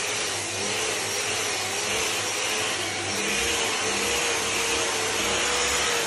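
Hand-held random orbital sander with a dust-extraction hose running steadily on wooden parquet: a motor whine that wavers slightly in pitch over a broad hiss of sanding and suction.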